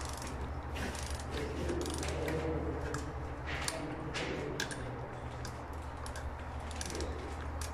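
Ratchet wrench clicking in short irregular runs as it turns the small M10 and M8 bolts on the head of a 132 kV cable termination, over a steady low hum.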